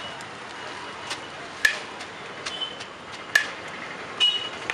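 Metal serving ladle striking a large metal biryani pot as rice is scooped out: two sharp clinks about a second and a half apart, over a steady hum of street traffic.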